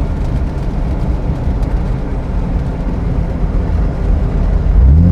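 2004 Jeep Wrangler TJ driving, its loud exhaust giving a steady low rumble over road noise. Near the end the engine note rises and then holds, louder, as it picks up speed.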